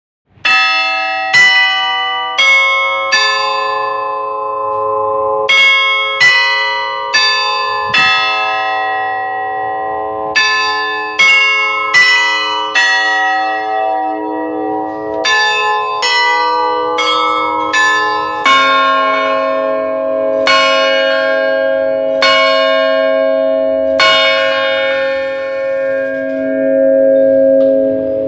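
Cathedral tower bells heard up close in the belfry. They ring a chime tune in short phrases of about four notes each. About two-thirds of the way in, a deeper bell begins striking slowly, four strokes, tolling four o'clock. Each strike rings on and overlaps the next.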